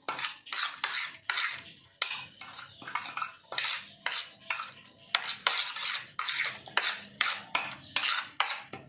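Metal spoon scraping and stirring wet spice paste around a stainless steel plate, in quick repeated strokes about two or three a second.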